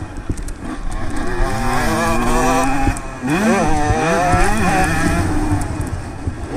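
Honda CR125 two-stroke single-cylinder motocross engine revving hard under acceleration. Its pitch climbs, drops sharply about three seconds in, climbs again and falls away near the end.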